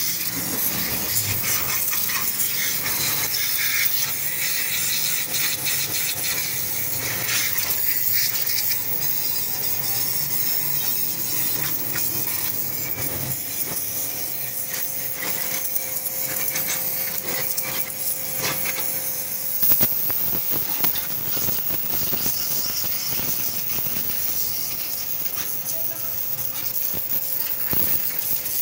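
High-pressure washer jet hissing steadily as it blasts dried cement off a metal trolley frame, with water spattering off the metal and a faint steady tone under the hiss. A single sharp knock stands out about twenty seconds in.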